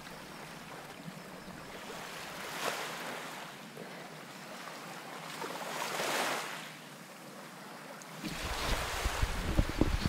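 Small waves washing against a rocky shoreline, the wash swelling and fading twice, with wind buffeting the microphone in the last couple of seconds.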